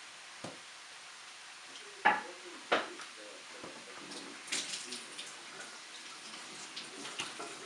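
Hard plastic LEGO pieces clicking and rattling as they are handled, with two louder sharp clicks about two and three seconds in and bursts of small rattling clicks later.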